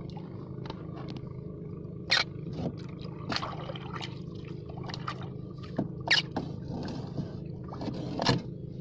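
A steady low motor hum, with several short sharp noises over it, the loudest about two, six and eight seconds in.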